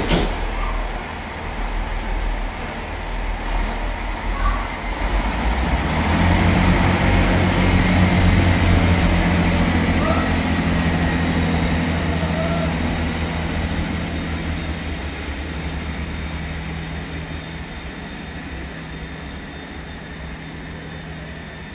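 Class 165 diesel multiple unit 165029 pulling out of a station. After a sharp knock at the start, its diesel engines open up about six seconds in, with a thin high whine rising above them. The sound then fades steadily as the train draws away.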